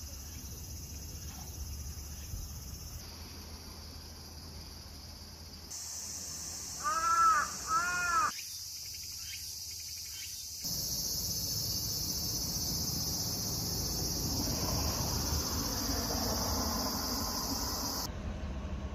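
Insects shrilling steadily in the trees, the drone stepping louder or softer at a few cuts. About seven seconds in, an animal gives a few short calls, the loudest sound here; a low, even background rumble comes in for the second half.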